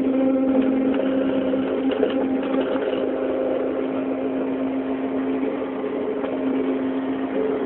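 CNC machine running: a steady motor hum at a constant pitch, with scattered light clicks.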